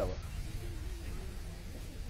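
A gap in a man's outdoor speech: a steady low rumble with faint voices of the surrounding crowd in the background.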